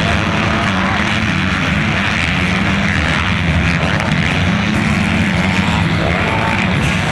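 Several 250cc-class motocross bike engines running together as the pack races through a turn, in a steady, overlapping drone.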